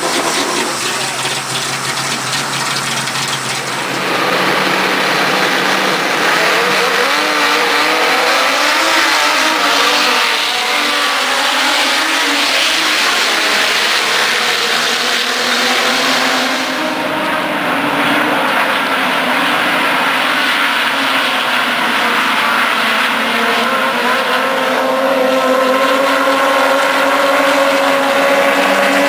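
A car engine running steadily at idle for the first few seconds. Then, after a jump in loudness, a field of race cars' engines runs and revs together, with one engine's pitch slowly climbing near the end.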